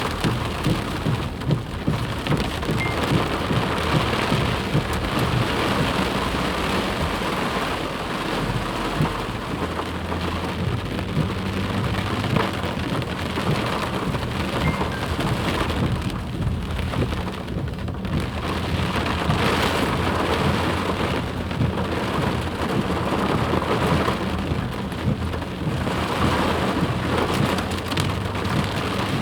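Flash-flood water rushing steadily, a dense unbroken noise of water with a strong low rumble underneath.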